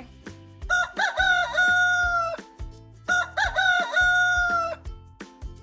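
Rooster crowing twice, each crow rising and then held long, over children's background music with a steady beat.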